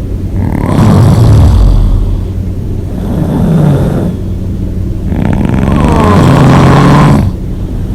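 A person snoring loudly with the mouth open: three long rattling snores, the first and last strongest and a weaker one between them.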